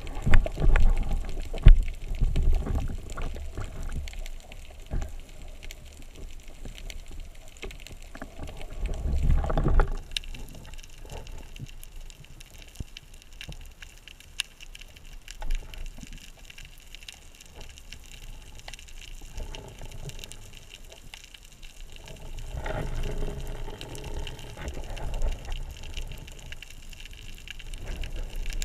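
Underwater water noise around a spearfisher's camera: low rushing surges of moving water, loudest near the start, about nine seconds in and again near the end, with scattered small clicks throughout.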